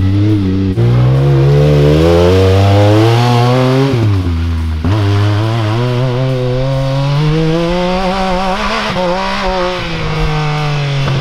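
Yamaha YXZ1000R's three-cylinder engine revving hard under load, its pitch climbing and falling with throttle and gear changes, with a sharp drop about four seconds in before it winds up again.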